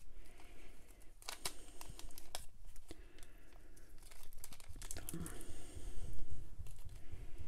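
A small clear plastic bag crinkling and rustling as it is handled, with irregular light crackles.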